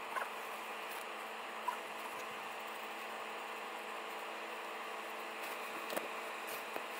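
Steady hiss and faint electrical hum of room tone, with a few soft clicks and taps.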